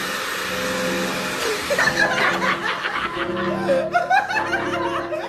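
Background music, with a steady hiss over it that stops about two seconds in, followed by people laughing.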